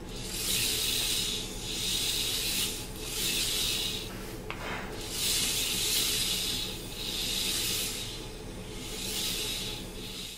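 K'NEX roller coaster car on ball-bearing wheel assemblies rolling along plastic K'NEX track, a rasping rolling hiss that swells and fades about six times as the car runs down the drop and back and forth along the track. A small click comes about halfway through.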